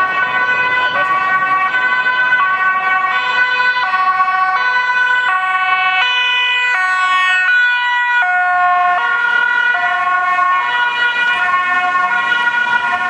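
Dutch ambulance's two-tone siren, alternating between a high and a low note about every two-thirds of a second as the ambulance approaches and passes. The pitch drops about eight seconds in as it goes by.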